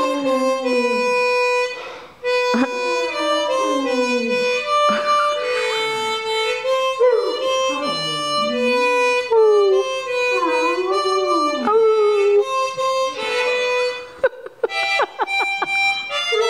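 Harmonica playing a tune in steady held notes while a dog howls along, its voice sliding up and down in pitch under the harmonica.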